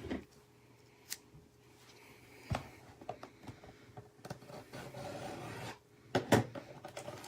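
Knife scraping and slicing through the shrink-wrap on a trading-card hobby box, a faint rasping rub lasting several seconds, with a few light knocks and clicks.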